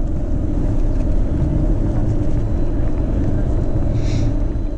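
Wind buffeting the microphone over a bicycle's tyres rolling on cobblestone pavement, a steady low rumble, with a brief high-pitched sound about four seconds in.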